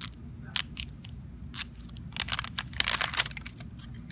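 Crinkly plastic wrapping of a LOL Surprise toy ball being peeled and torn by hand: a string of crackles and rips, thickest in the middle of the stretch.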